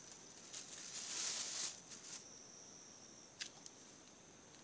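Steady, high, thin insect drone in tropical forest, with faint rustles and a few short clicks as ripe salak (snake fruit) are handled and picked off the cluster.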